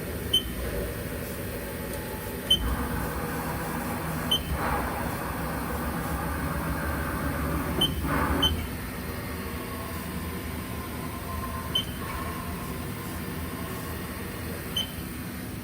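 Haas Mini Mill CNC being jogged from its control: several short, sharp beeps from the control keys, with the axis drives whirring as the table and head move, and a steady whine later on.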